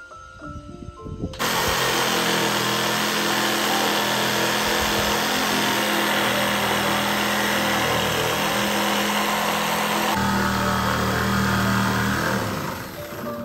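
Handheld cordless hedge trimmer running as it cuts back wisteria stems: the motor starts about a second in and runs steadily, its tone dropping lower about ten seconds in, then tails off near the end.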